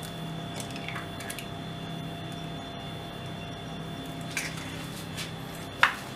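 An egg being cracked and emptied into a nonstick frying pan with a little oil: a few faint clicks and soft knocks of the shell and pan over a steady low hum.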